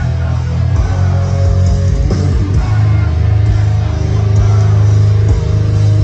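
Live heavy metal band playing loud: heavily distorted electric guitars and bass with drums, a dense low-end chug heard from within the crowd.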